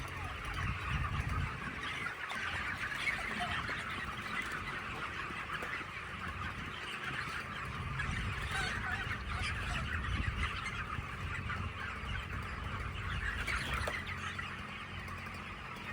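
A large flock of chickens in a poultry house clucking and chattering together, a dense, continuous din of many overlapping calls, with a low rumble underneath.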